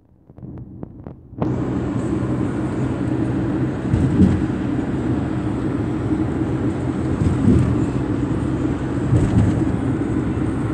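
Steady rumble and wind noise of a moving vehicle heard from inside, cutting in suddenly about a second and a half in after a few faint clicks.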